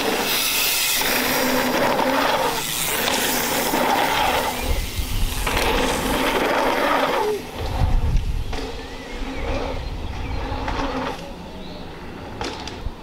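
Mountain bike tyres rolling and crunching over a gravel and packed-dirt jump line, rising and falling in surges as riders pass. Deeper rumbles come twice, around the middle.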